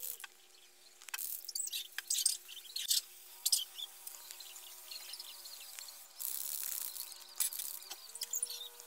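Aerosol spray-paint can hissing in a series of short bursts as it is swept along the wood, the longest about six seconds in and lasting around a second. A faint steady hum lies underneath.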